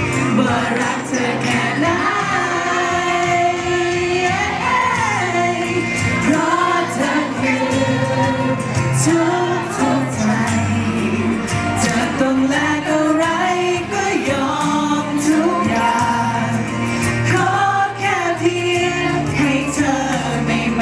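Live singing into handheld microphones over a pop-song backing track, played through a PA speaker.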